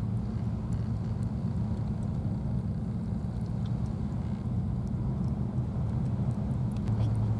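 A steady low rumble, with a few faint ticks over it.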